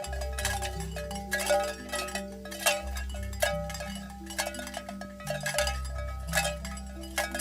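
Background music: bell-like chime notes struck at a regular beat over sustained low notes that change pitch every few seconds.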